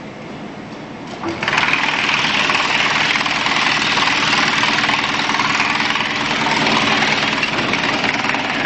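BX215 wood chipper running steadily, then about a second and a half in it turns much louder as wood is fed in and chipped, a dense hissing grind over the machine's steady hum that carries on to the end.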